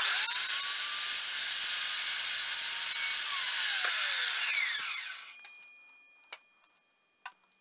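Evolution R355 carbide-tipped chop saw running and cutting through PVC pipe with a steady high whine. About three seconds in the trigger is released and the blade spins down, its whine falling away until it stops about five and a half seconds in. Two faint clicks follow.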